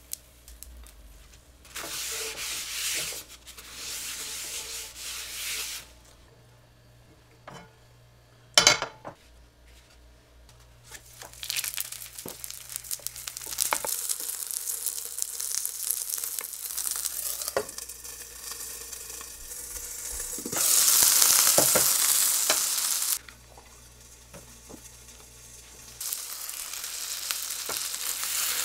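Rice-paper-wrapped ground pork patties frying in oil in a nonstick pan: a sizzling hiss that stops and starts in several stretches, loudest about three-quarters of the way through. A single sharp knock about nine seconds in.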